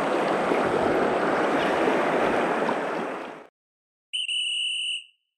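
Rushing water of a shallow river riffle, cut off about three and a half seconds in. A single high steady tone then sounds for about a second, a signal marking time up.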